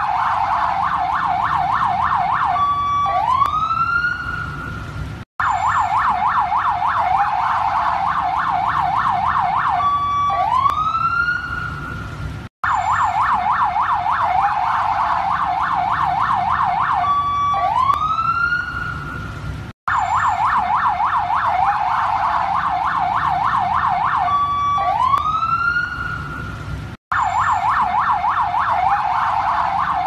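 Emergency-alert alarm siren: a rapid warbling yelp, a short steady beep, then a single rising whoop, the cycle cutting off briefly and repeating about every seven seconds.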